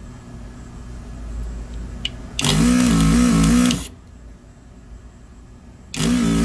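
Vacuum pump of an electric desoldering gun buzzing with a wavering pitch and a rush of suction. It runs for about a second and a half, stops, and starts again near the end, pulling molten solder off the pins of the mouse's click switches so they can be removed.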